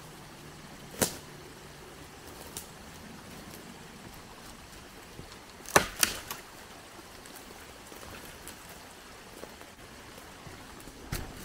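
Footsteps through dry twigs and leaf litter, with a few sharp snapping cracks, loudest about six seconds in as the walker passes close. Under them, the steady trickle of a small forest stream.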